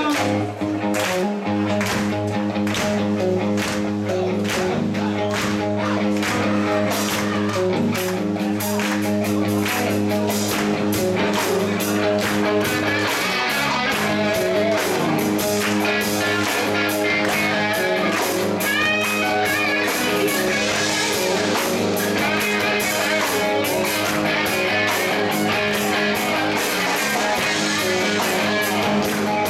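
Rock band playing live, with electric guitars, bass and drum kit over a steady beat. About halfway in, a higher lead line with bending notes comes in over the band.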